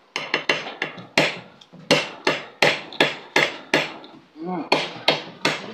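A rapid, fairly even series of sharp knocks, about three a second, each with a short ringing tail. A brief voice sound comes about four and a half seconds in.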